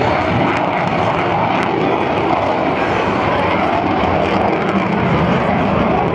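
Aircraft engine noise from a plane in flight: a steady, loud drone whose pitch wavers slowly up and down.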